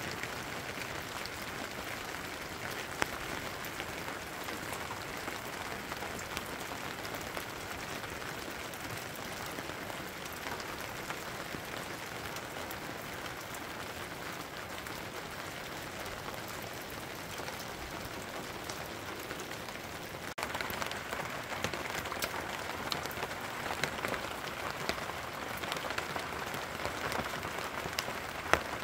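Rain falling steadily, with scattered single drops ticking. About twenty seconds in it suddenly gets louder.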